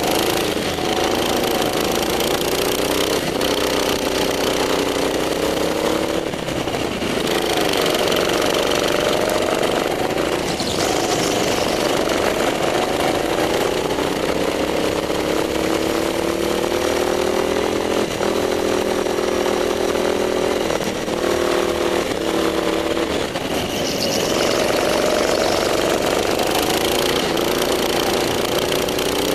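Go-kart engine running hard under the driver, its pitch rising and falling several times as the throttle is opened and eased off.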